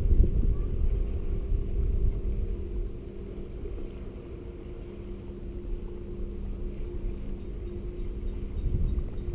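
Low, steady drone of a distant motorboat engine passing on the water, with a heavier rumble in the first few seconds that eases off.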